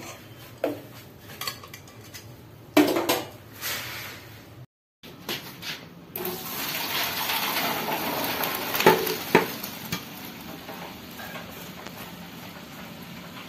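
A metal ladle clinking and knocking against a steel pot of boiled rice, then hot water and rice pouring into a plastic colander with a rushing splash that slowly fades, a couple of knocks in the middle of it: the rice being drained.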